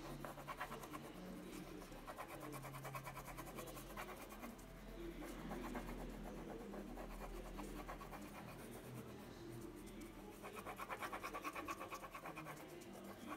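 Yellow crayon scribbling on paper in rapid back-and-forth strokes as an area is shaded in, getting busier and louder near the end.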